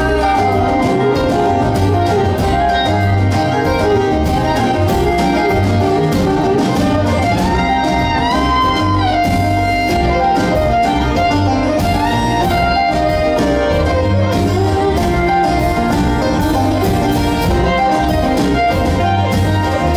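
Live acoustic string band playing a song, with fiddle, banjo, acoustic guitar and upright bass, the fiddle to the fore. The fiddle slides between notes about eight seconds in.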